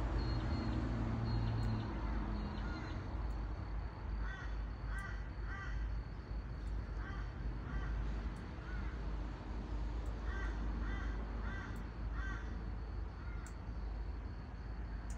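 A crow cawing in short runs of three to five calls, the longest run near the end, over a low steady rumble.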